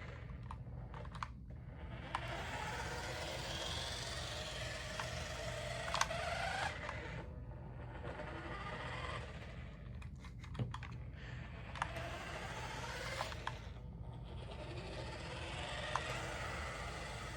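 Small electric motor and gears of a toy remote control car whirring as it drives, the pitch rising and falling as it speeds up and slows, with scattered sharp clicks.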